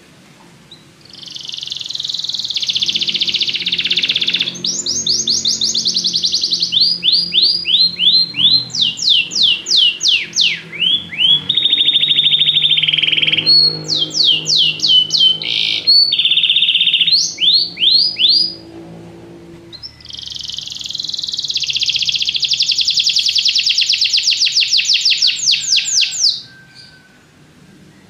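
Domestic canary singing in two long bouts of fast rolling trills and rapid runs of sweeping notes, with a pause of about a second and a half between them.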